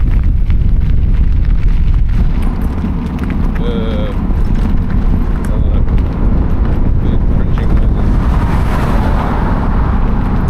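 Wind buffeting the microphone, a loud steady low rumble, while riding along a sandy beach. A brief faint wavering cry or voice about four seconds in.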